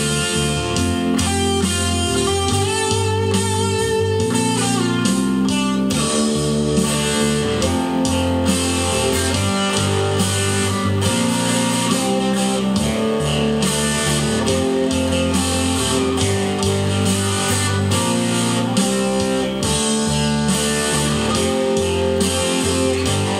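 Electric guitar with humbucker pickups playing a lead solo over a backing track, with held bass notes underneath and a run of fast notes a few seconds in.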